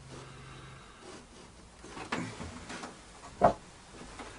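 A few light wooden knocks as wooden spacer blocks are set down and positioned on the plywood floor of a saw cabinet, the sharpest about three and a half seconds in.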